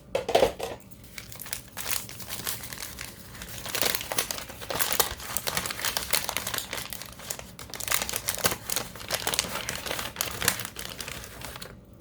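Wrapping on a small mini spell candle crinkling and tearing as it is pulled open by hand, in a busy run of irregular crackles with a louder burst just after the start.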